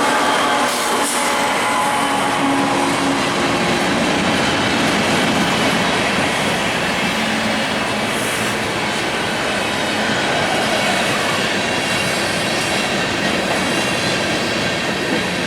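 An empty train's cars rolling steadily past at close range, with a steady rail noise and some wheel squeal.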